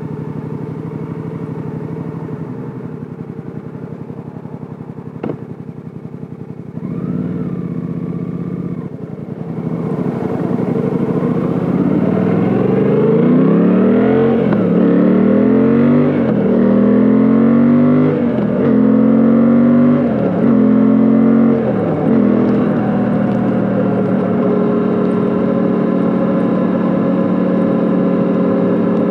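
Suzuki V-Strom 800DE's 776 cc parallel-twin engine idling, then a brief throttle blip. It pulls away and accelerates up through the gears, the pitch rising and dropping at each of about five upshifts, before settling into a steady cruise.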